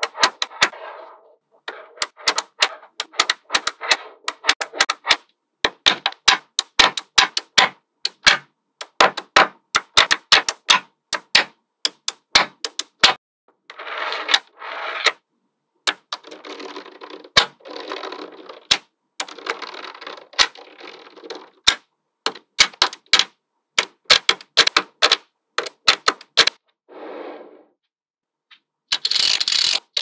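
Small magnetic balls clicking sharply as they snap together, in quick irregular runs. The clicks are broken by several stretches of a second or two of rattling and scraping as groups of balls roll or slide against each other.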